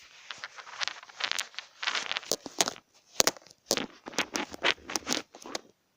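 Handling noise close to the microphone: an irregular run of scrapes and sharp clicks as small hard objects are shifted and set against the device to prop it up.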